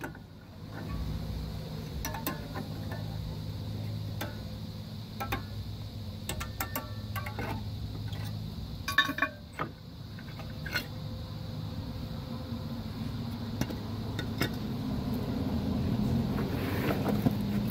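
Metal clinks and clicks from the rear drum brake shoes and their spring hardware being worked off the backing plate of a Dodge Caravan, coming in scattered bunches with the loudest cluster about nine seconds in, over a steady low hum.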